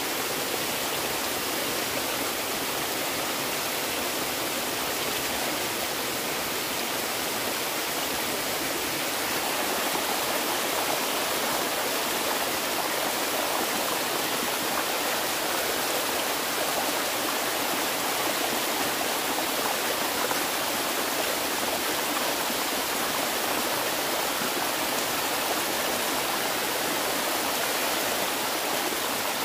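Steady rush of running water, getting a little louder about a third of the way through.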